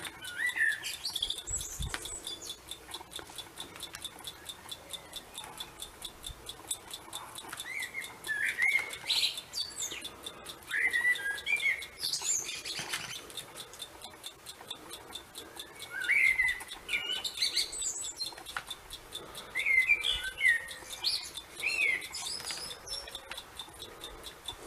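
Small songbirds chirping in short, scattered calls that glide up and down, a few every couple of seconds.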